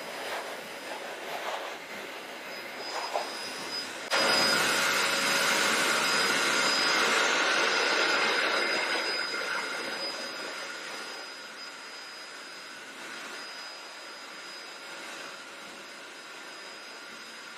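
SHELANDY 3.2 HP pet force dryer running: a rush of high-speed air with a steady high whine. It jumps suddenly louder about four seconds in, then eases off gradually over the next several seconds to a lower steady level.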